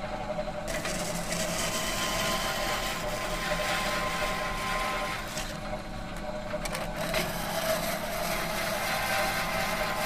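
Steady metal machine hum: a constant low drone with several held tones under a whirring hiss. The hiss thins out briefly near the start and again a little past the middle.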